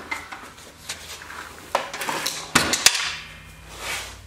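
Sharp metal clanks and knocks from the stripped-down tracked snowblower chassis being handled on a concrete floor: one a little under two seconds in, then two close together about a second later.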